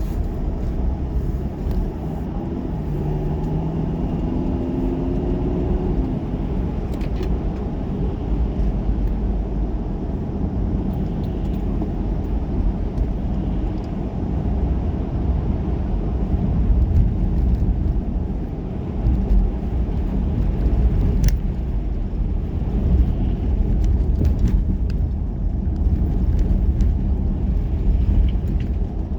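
A car running, a steady low rumble, with a faint engine tone shifting in pitch a few seconds in.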